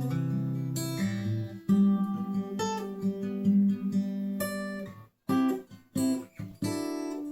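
Washburn WD11SCE acoustic-electric guitar being strummed, with chords ringing out between strokes and a brief pause a little past the five-second mark.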